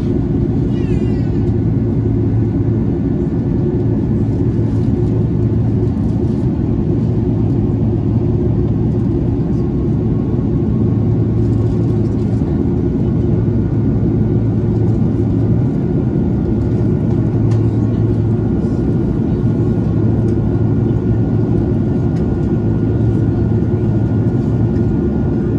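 Steady cabin drone of an Airbus A330 in flight, heard beside its Rolls-Royce Trent 700 engine: an even, low rumble of engine and airflow noise. A brief high, wavering cry sounds over it right at the start.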